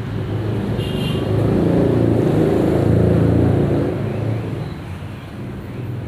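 A vehicle engine passing by: a low pulsing rumble that swells to a peak about three seconds in and then fades. A brief high chirp sounds about a second in.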